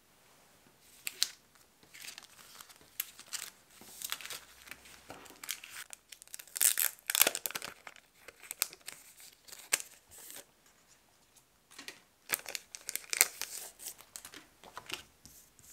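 Clear plastic sticker sleeves crinkling as sticker sheets are unpacked and handled, in irregular bouts of crackling that are loudest from about six to eight seconds in and again near the end.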